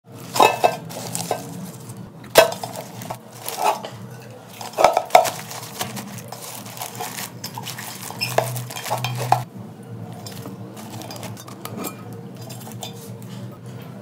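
A metal cooking pot being handled, with about seven sharp, ringing clanks and knocks in the first nine and a half seconds, then lighter ticks and scrapes.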